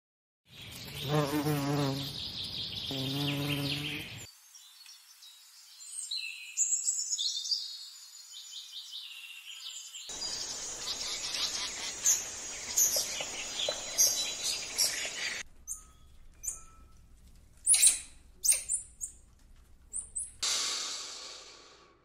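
A bee buzzing in two stretches with a wavering pitch, followed by high bird chirping and twittering, then a run of separate sharp, high chirps.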